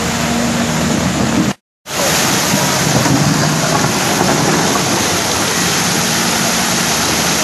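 Steady, loud rushing noise of rain and running floodwater, with a hydraulic excavator's engine running low underneath. The sound cuts out for a moment about a second and a half in.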